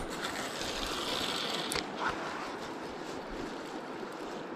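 River water rushing steadily over rocks, with a brief sharp click just under two seconds in.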